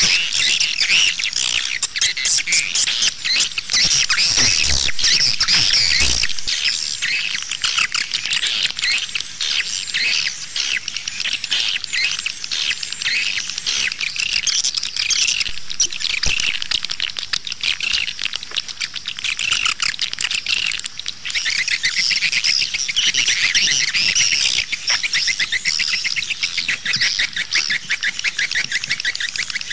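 Swiftlet lure call recording: a dense, unbroken twittering of many rapid swiftlet chirps, the 'outside' call played from a swiftlet house to draw edible-nest swiftlets in.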